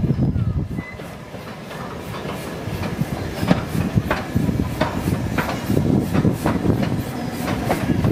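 GNR N2 class 0-6-2 tank steam locomotive running with a coach, its exhaust beating over the low rumble of wheels on rail, growing louder after the first second or so.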